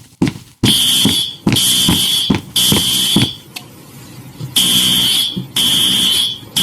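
School fire alarm sounding, a loud buzzing horn with a steady high tone. It gives blasts of just under a second each, three in a row, then a pause, then the blasts start again: the evacuation signal. A short click comes just before the first blast.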